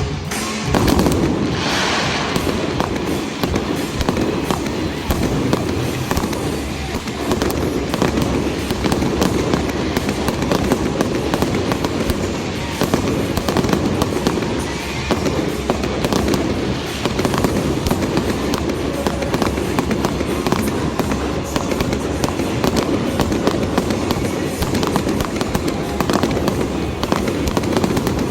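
Fireworks display: a dense, continuous barrage of bangs and crackling, with music playing underneath.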